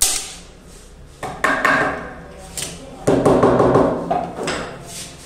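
A hand staple gun firing once with a sharp snap, driving a staple through the snooker cloth into the wooden cushion rail. Afterwards, rustling and knocks as the cloth and tools are handled.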